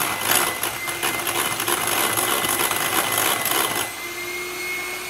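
Sunbeam electric hand mixer running, its beaters whipping egg whites in a glass bowl with a steady motor hum and a busy rattle. About four seconds in the rattle eases, leaving the motor's steady hum.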